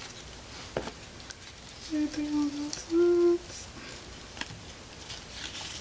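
A woman hums two short steady notes, the second a little higher and shorter, with a few faint handling clicks around them.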